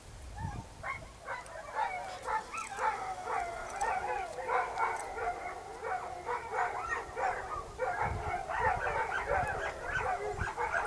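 Several dogs barking and yelping at once in a continuous, overlapping chorus that starts about a second in.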